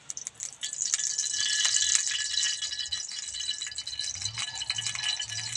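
Cooking oil poured into a hot wok over a wood fire, crackling and spitting as it hits the metal. It starts abruptly with the pour and carries on as a dense crackle over a hiss.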